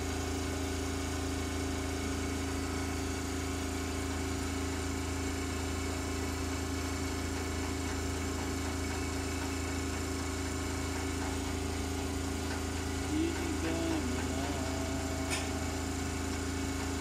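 Steady drone of an idling engine, with a faint voice about thirteen seconds in and a single light click near the end.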